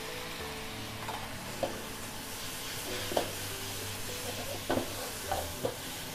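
Rice noodles for pad thai sizzling in a hot wok over a gas wok burner as they are stir-fried. A metal ladle and spatula clank and scrape against the wok several times.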